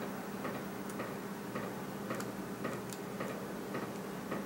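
Steady, evenly spaced ticking, about two ticks a second, over a faint steady hum.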